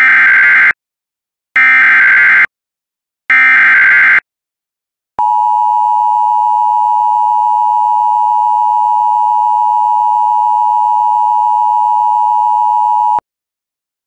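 Emergency Alert System tones: three short buzzing bursts of SAME digital header data about a second apart, the coded header of a Severe Thunderstorm Warning, then the steady two-tone EAS attention signal held for about eight seconds before cutting off sharply.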